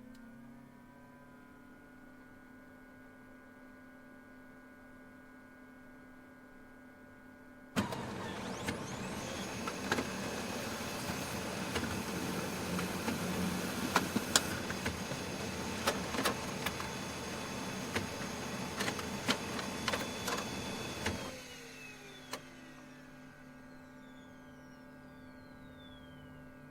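Dell laser printer working through a print: its motors and fan hum steadily, then from about 8 s a much louder clattering run of paper feeding with many clicks lasts about 13 seconds, before dropping back to the hum, which winds down with a falling whine near the end.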